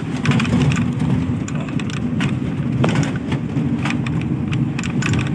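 Steady engine and road rumble heard from inside a moving vehicle, with short rattling clicks scattered through it.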